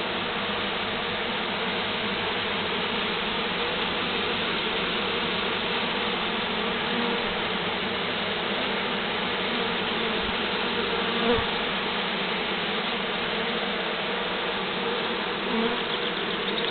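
Honeybee swarm buzzing: a steady, dense hum of many bees flying around their cluster.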